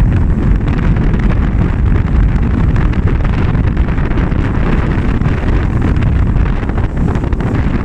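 Strong wind buffeting the microphone: a loud, steady low rush.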